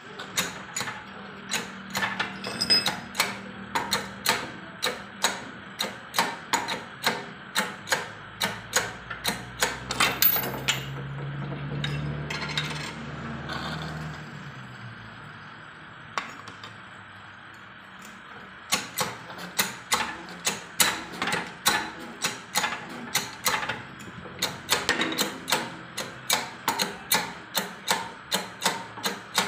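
Rhythmic mechanical clicking, about two sharp clicks a second. A little before the middle it gives way to a low hum that rises and falls, then a quieter stretch, and the clicking starts again about two-thirds of the way through.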